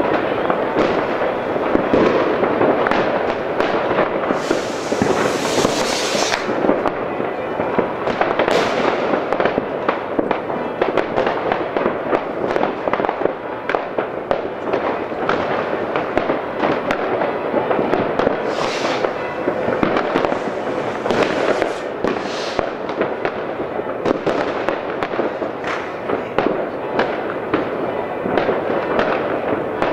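Dense, continuous crackling and banging of many New Year's Eve fireworks going off at once across a city: firecrackers and rockets merging into one unbroken din. A few longer hissing rushes stand out, the longest about five seconds in.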